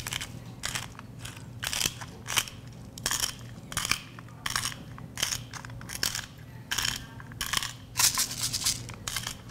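Hand-twisted spice grinder cracking pepper and salt, a short crunching rasp with each twist, repeated about every half second.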